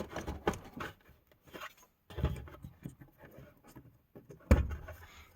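Hands handling the fuel pump's plastic connectors and clips: scattered small clicks and rubbing, with one sharp knock about four and a half seconds in.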